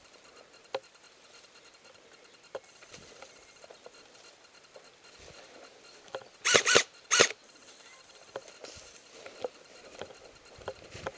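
Three sharp, loud cracks in quick succession, over faint rustling and scattered small clicks of movement.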